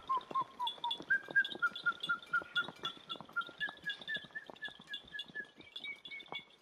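Background music: a high, whistle-like melody of short repeated notes, about three or four a second, stepping up and down in pitch, with light ticking.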